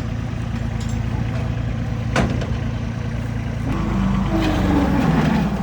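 Bobcat S70 skid steer's small diesel engine running steadily, with a sharp clunk about two seconds in. From about four seconds in it gets louder and its pitch sags under load, the engine running at low throttle.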